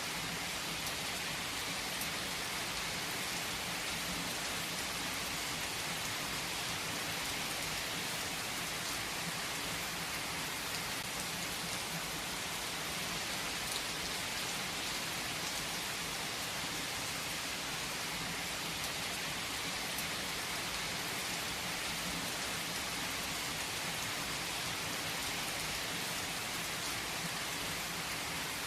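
Steady rain falling and pattering on a surface, an even hiss with a few separate drop taps.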